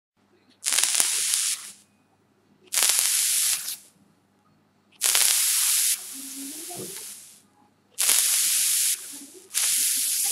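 Five short bursts of hissing, each about a second long, from vaping on a dual-coil dripping atomizer run at about 30 watts.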